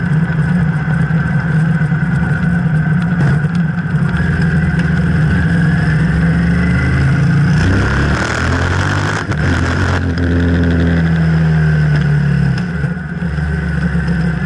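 Yamaha TDM 850's parallel-twin engine running on a crude straight-through exhaust tip fitted in place of the stock silencers, heard from the saddle while riding. About halfway through, the engine note changes pitch in steps and a rush of noise swells for a couple of seconds before the steady running returns.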